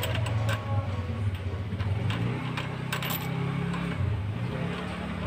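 Scattered light clicks and knocks as a plywood bearing block is handled on a threaded steel rod, over a steady low hum.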